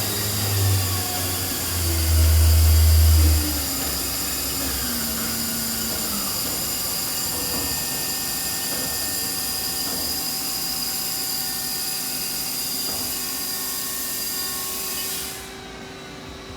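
Haas SL-40TLB CNC lathe running with a steady high whine; in the first few seconds its pitch falls, as the spindle slows, with a louder low hum for about a second and a half. The high whine cuts off suddenly near the end.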